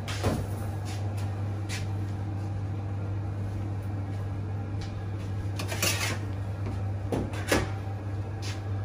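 Steady low hum of kitchen equipment, with a few light knocks and clatters of handling on a steel counter. The two loudest knocks come a little past the middle and again about a second and a half later.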